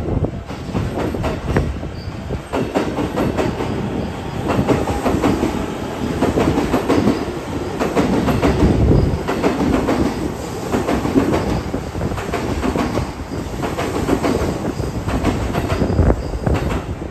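EF64 electric locomotive hauling a rake of E217-series cars, rolling slowly into the station. There is a steady rumble with wheels clacking irregularly over rail joints and points, and a faint high wheel squeal now and then.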